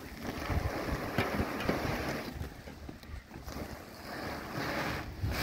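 Wind buffeting the microphone: an uneven, gusty rumble and rush that swells and dips.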